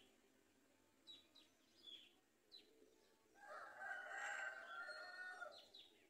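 Faint, short, high bird chirps, four of them, followed by a rooster crowing once for about two seconds, the loudest sound.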